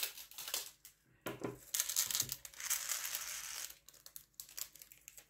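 Plastic diamond-painting drills clicking and rattling in a small plastic tray and against the drill pen: a few light clicks, then about two seconds of dense rustling rattle in the middle, then light clicks again.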